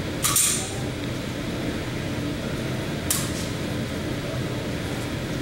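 Two pistol shots about three seconds apart, heard as sharp high cracks, over a steady hum of range ventilation.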